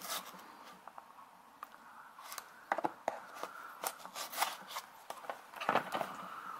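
Knife blade slitting the tape seals on a cardboard box: light scraping with scattered clicks as the blade catches and slides along the seam, louder about halfway through and again near the end.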